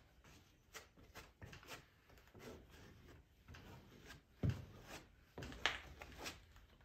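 Gloved hand wiping a paper towel over the wet rubberized mastic on a canoe's canvas hull: faint, irregular rubbing strokes. There is a low thump a little past the middle.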